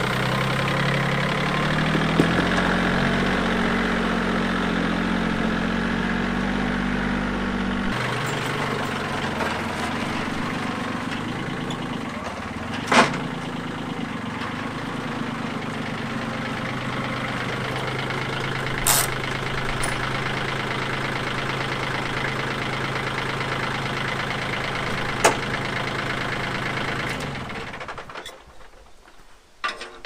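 Compact tractor engine running, then settling to a lower, steady idle about eight seconds in, with three sharp clicks along the way. It shuts off a couple of seconds before the end.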